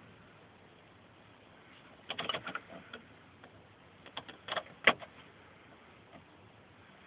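A few short mechanical clicks and knocks against a quiet background: a cluster about two seconds in, then another about four to five seconds in that ends in the loudest knock.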